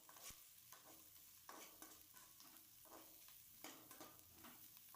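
Faint sizzling of chopped onion, ginger and curry leaves frying in a little oil in a pan, with scattered small crackles and clicks.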